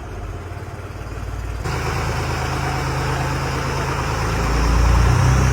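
Tractor diesel engine running. About a second and a half in the sound changes abruptly and the engine gets louder, swelling to its loudest near the end.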